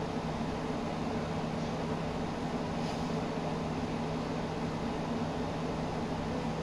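Steady low hum and hiss of room background noise, with a faint brief scratch about three seconds in.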